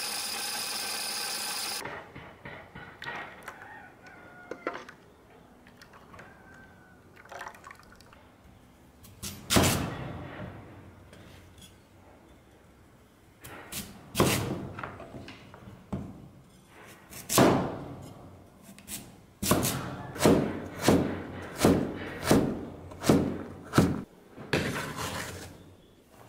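A heavy cleaver chopping sweet potato on a wooden cutting board: a few separate loud chops, then a quick run of about one a second, and the diced pieces scraped off the board into a steel bowl near the end. At the start, an electric grinding mill's motor hums steadily and cuts off about two seconds in.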